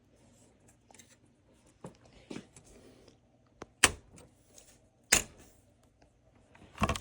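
Sharp clicks and knocks of parts being fitted by hand onto a flat-screen TV during reassembly, a few seconds apart, with faint handling sounds between; the loudest knock comes about four seconds in.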